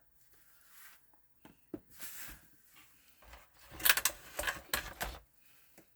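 Handling noise: scattered light clicks and rubbing, then a run of sharp clicks and rattles about four to five seconds in.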